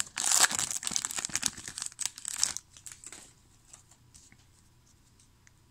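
Crinkling and rustling of a trading-card pack wrapper and cards being handled, dense for about the first two and a half seconds, then dying down to a few faint ticks.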